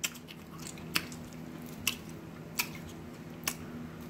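Close-up chewing of a messy double cheeseburger, with sharp wet mouth smacks about once a second over a faint steady hum.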